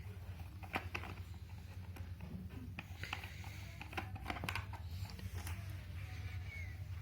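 Scattered small clicks and taps of a screwdriver and hands working the screws out of a plastic keyboard case, over a steady low hum.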